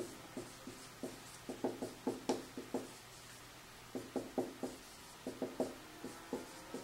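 Dry-erase marker squeaking against a whiteboard as words are written, in quick short strokes that come in bursts, with a brief pause about three seconds in.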